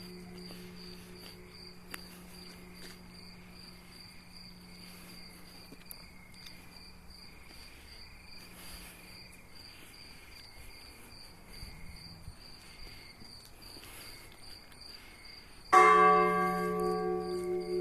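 A bell or bowl-type bell ringing: a long fading tone, then struck again loudly near the end and ringing out with many overtones. Throughout, an insect chirps in a steady high pulse.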